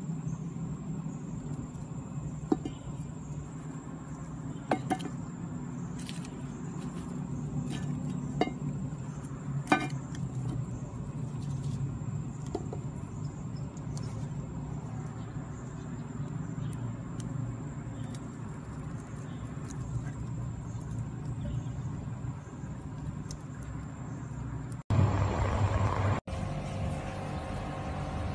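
Wood fire burning under a cooking pot, with a few sharp, sparse pops over a steady low rumble and a thin, steady high-pitched whine. Near the end a louder burst of noise starts and cuts off abruptly.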